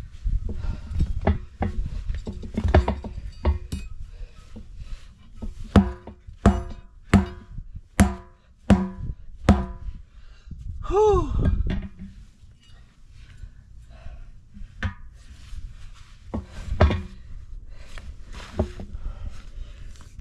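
Rubber mallet blows hammering a heavy truck tyre's bead down onto its rim, a run of sharp strikes that each carry a short ringing tone, coming about one every 0.7 s for a stretch a third of the way in, then fewer and more spread out.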